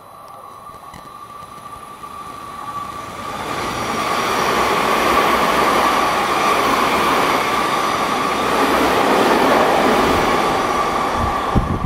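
Seibu 20000 series electric train passing through the station at speed without stopping. The rush of wheels and air builds over a couple of seconds, stays loud while the cars go by, and ends with a few sharp knocks.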